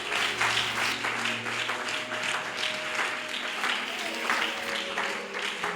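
Church congregation applauding, many hands clapping steadily, with faint held musical notes underneath.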